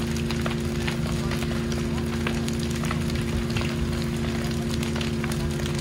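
An engine running at a steady speed, with many sharp crackles and pops over it throughout.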